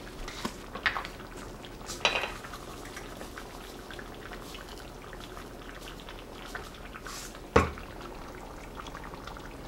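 Pot of tomato sauce with chicken simmering, a steady soft bubbling, with a few sharp clinks of utensils or cookware, the loudest about two seconds before the end.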